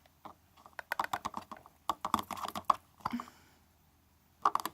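Plastic Elmer's glue bottle being squeezed and tapped over a cup to get the last glue out: quick runs of small clicks and sputters, with a short pause before a few more near the end.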